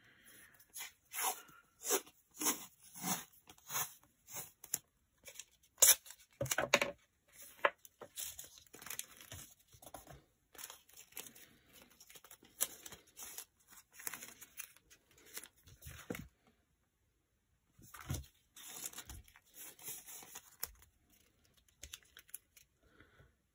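Sheets of scrapbook paper rustling and crinkling as they are shuffled, slid and handled. The sounds come in a run of short rustles, the loudest crackle about six seconds in, with a pause of about two seconds after sixteen seconds and fewer sounds near the end.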